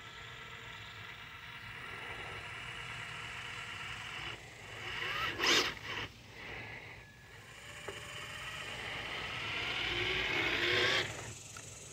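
Traxxas TRX-4 Sport RC crawler truck driving on gravel: its electric motor and gears whine steadily while the tyres crunch over stones. The whine grows louder as the truck comes right up close near the end, and a couple of short, louder scrapes come around the middle.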